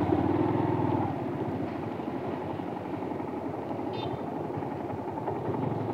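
Motorcycle engine running at low revs as the bike rolls slowly, dropping a little lower about a second in. A brief high chirp sounds near the middle.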